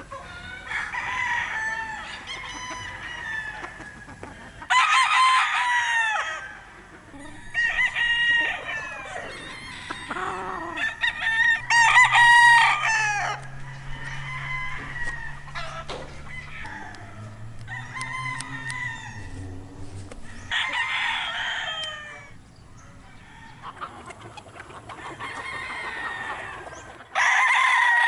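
Many fighting-cock roosters crowing again and again, their calls overlapping, with softer clucking and calls between the loudest crows.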